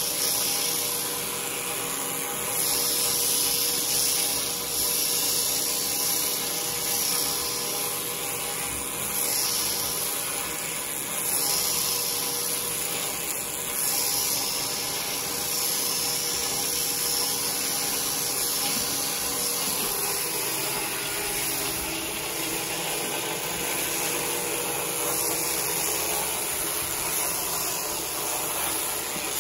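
Electric sheep shears running steadily, a continuous motor hum as the cutter works through a sheep's thick fleece.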